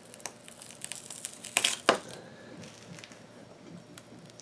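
Flathead screwdriver prying a taped-on skid plate (keel guard) off a kayak hull: irregular crackling and tearing as the double-sided outdoor mounting tape lets go, with two sharp cracks close together about a second and a half in.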